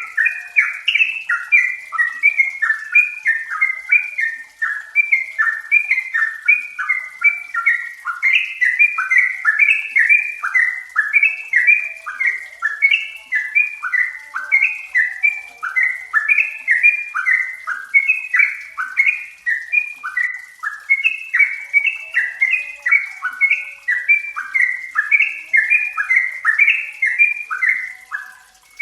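Yellow-vented bulbul (trucukan) song: a steady, rapid stream of short, bubbly chattering phrases, packed closely together.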